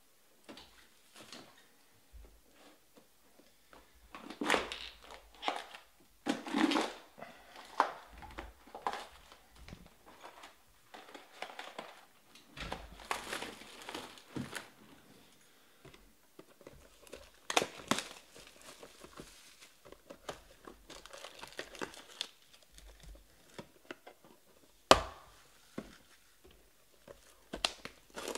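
Plastic shrink wrap crinkling and tearing as it is pulled off a sealed box of trading cards, in scattered rustles. A single sharp click comes near the end.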